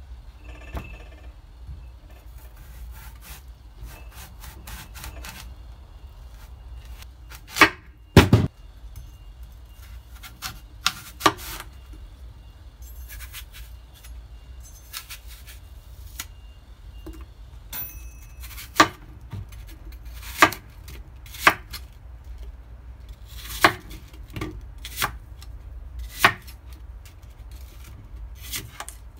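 Kitchen knife chopping on a cutting board in irregular strokes, a stroke every second or two, with a pair of harder chops about eight seconds in, over a low steady hum.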